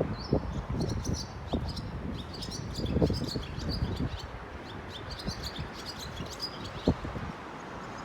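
Barn swallow singing a fast run of high twittering chirps that stops about six seconds in, over wind buffeting the microphone.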